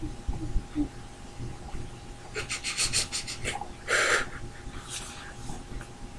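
Short, breathy sounds of heavy breathing and sniffing: a quick run of breaths about two and a half seconds in and a stronger breath or sniff about four seconds in, over a low steady hum.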